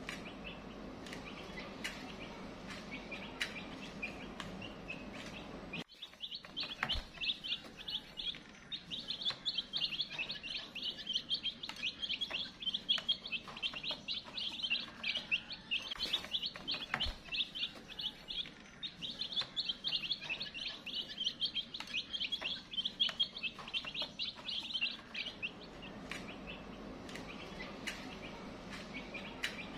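A group of Aseel chicks peeping rapidly and continuously in high, shrill notes. The peeping is faint at first, turns suddenly loud and dense a few seconds in, then drops back to faint near the end.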